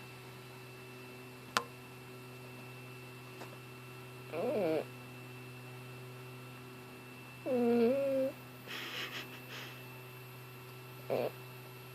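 A sleeping cat snoring, with brief squeaky moans that fall and waver in pitch and a few breathy snuffles between them. The owner wonders whether the cat is dreaming or having a seizure. A steady low hum lies underneath.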